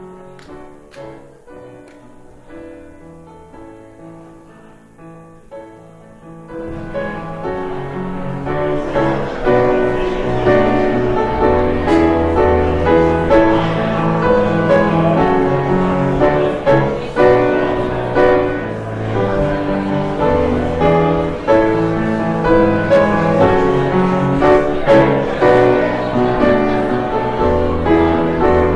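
Piano music, soft for the first six seconds or so, then louder and fuller.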